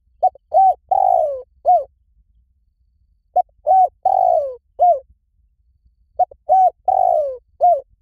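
Spotted dove cooing in three repeated phrases about three seconds apart. Each phrase is a short note, an arched coo, a longer coo sliding down in pitch, and a short final coo.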